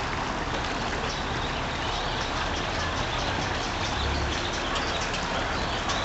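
Steady rush of running water, with small birds chirping now and then high above it.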